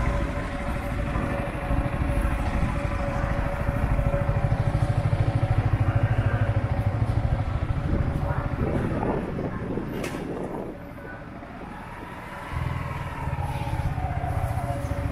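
Motorbike engine running just after being started, a steady low rumble that dies down about eleven seconds in and picks up again as the bike moves off. A single click sounds about ten seconds in.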